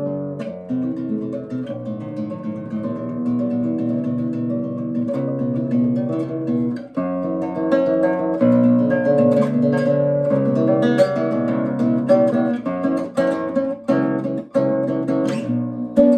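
Acoustic guitar fingerpicked in arpeggios, each finger plucking its own string so the notes ring into one another.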